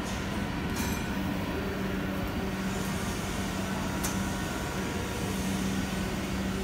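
Steady machinery hum of a factory hall, a constant low drone under a noisy wash, with two short sharp clicks, one about a second in and one about four seconds in.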